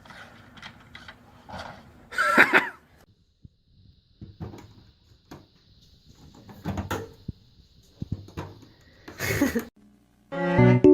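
Scattered knocks and bumps, with two louder noisy bursts, about two seconds in and about nine seconds in. Keyboard music starts just before the end.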